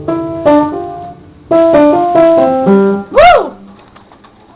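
Electronic keyboard playing a short run of separate notes in a simple tune. It is followed, a little past three seconds in, by one brief pitched sound that swoops up and back down.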